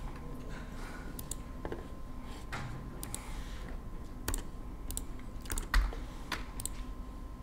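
Scattered, irregular clicks of a computer keyboard as keys are pressed, with one louder knock about six seconds in. A faint steady high tone runs underneath.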